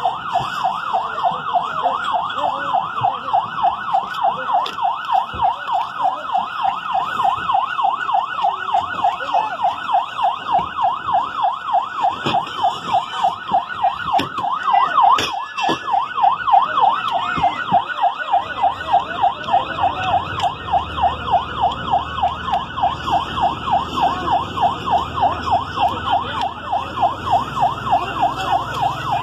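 Ambulance siren in a fast yelp, its pitch sweeping up and down about four times a second without a break. A low engine rumble joins in about two-thirds of the way through.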